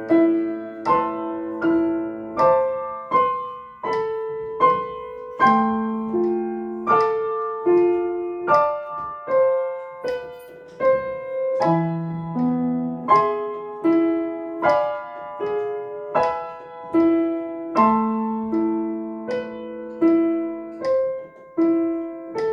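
Piano played slowly with both hands, a new note or chord struck about every three quarters of a second and each left to ring: a practice run through a short passage at 78 quaver beats per minute, played legato without the sustain pedal.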